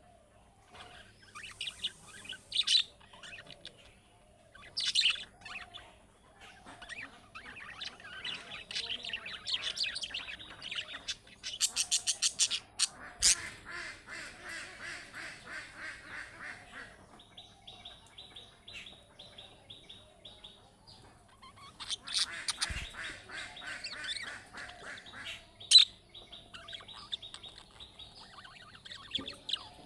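Budgerigar chattering and warbling: a busy mix of short chirps, fast twittering trills and a few sharp clicks, with one loud sharp chirp near the end.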